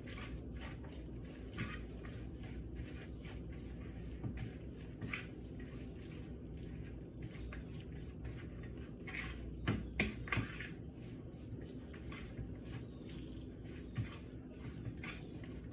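Shredded lettuce salad being mixed with a mayonnaise, mustard, vinegar and oil dressing in a bowl: irregular short stirring noises, with a few louder knocks against the bowl about ten seconds in.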